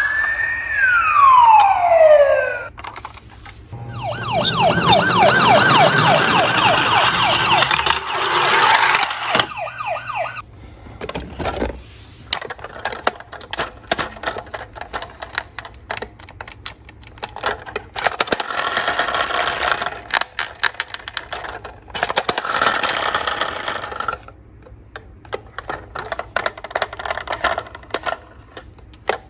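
Toy ambulance's electronic siren wailing, rising and then falling, for the first two and a half seconds, followed by several seconds of fast repeating electronic siren tones. Then plastic toy cars click and knock as they are handled in a cardboard box, with two whirring bursts of about two seconds each.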